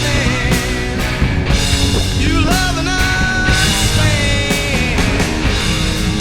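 Rock music: a lead line of bending, sliding notes over a steady full band.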